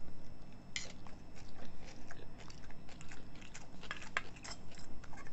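Close-up eating sounds: egg noodles with kimchi being slurped and chewed, with spoons and forks clicking and scraping against stainless steel dishes in many short, irregular clicks.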